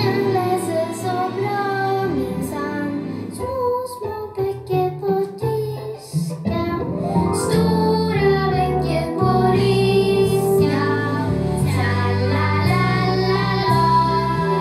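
A child singing a song over instrumental backing music; the accompaniment grows fuller about six and a half seconds in.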